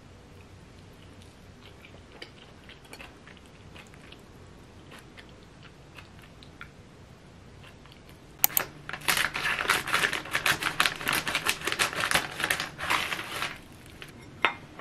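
Faint light clicks of tableware. Then, about eight seconds in, scissors cut across the top of a plastic bag of frozen pie sheets, the plastic crinkling and crackling loudly for about five seconds, followed by one more click near the end.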